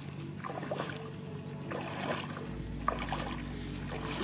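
Feet sloshing and splashing through shallow muddy water in repeated wading steps, with a steady low hum underneath.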